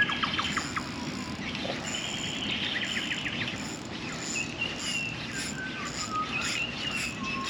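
Birds calling: clear whistled notes, some falling in pitch, and two rapid chattering trills, the first at the start and the second around the middle. Beneath them runs a low steady rumble.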